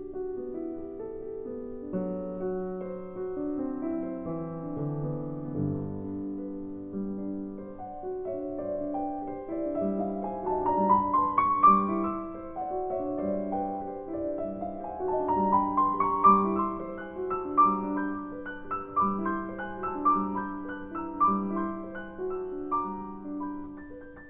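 Background piano music: a gentle melody with rising runs of notes about ten seconds in and again at about fifteen seconds.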